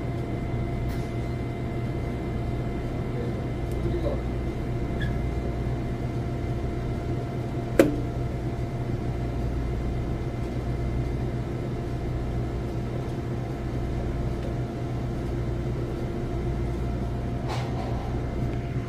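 Steady low machine hum with a few faint steady tones, from refrigerated display coolers, under faint clicks and taps as plastic roller bearings are pressed into a roller grill's stainless steel side panel. One sharp snap about eight seconds in is the loudest sound.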